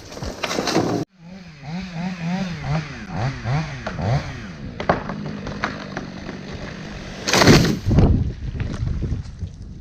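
An engine revving up and down over and over, its pitch rising and falling, then a loud noisy burst about seven and a half seconds in.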